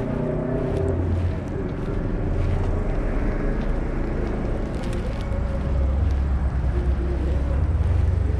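City street traffic: cars driving past with a steady low engine and tyre rumble, growing a little louder in the second half as a car approaches.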